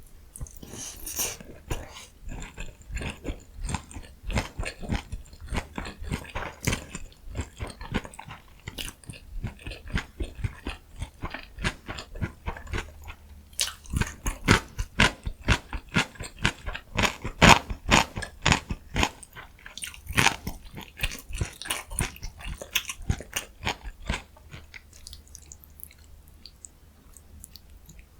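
Close-miked chewing of food, with rapid, crisp, moist clicks several times a second. It starts with a loud bite about a second in, grows loudest in the middle, and tapers off near the end.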